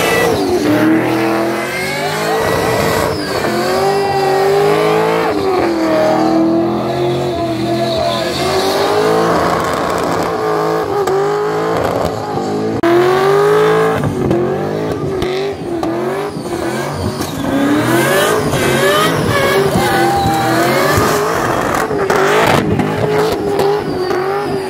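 Racing engines revving hard, their pitch rising and falling again and again.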